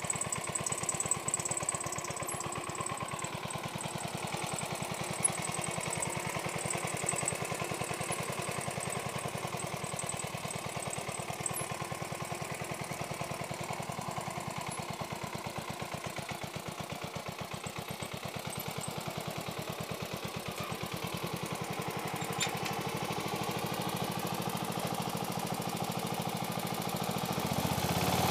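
Sears garden tractor's Craftsman gasoline engine running steadily under load while pulling a moldboard plow through soil, getting louder near the end.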